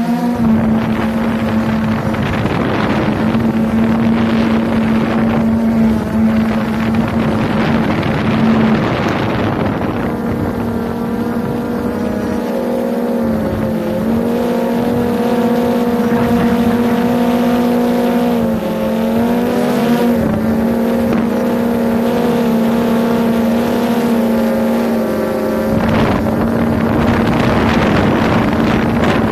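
Drone motors and propellers buzzing steadily, heard close from the aircraft itself, the pitch shifting slightly as it manoeuvres. Wind rushes over the microphone in stretches early on and again near the end.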